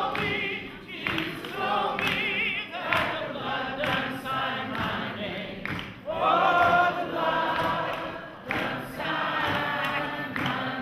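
A group of voices singing gospel music together in church, wavering with vibrato on held notes. The singing swells to a long, loud note about six seconds in.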